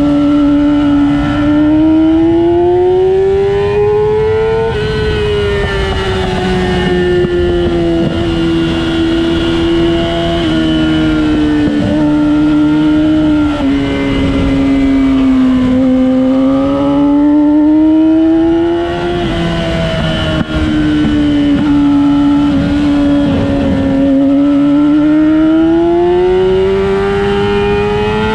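A vehicle's engine lapping a race track at speed, its pitch climbing steadily under acceleration and falling away on lifts and braking, several times over.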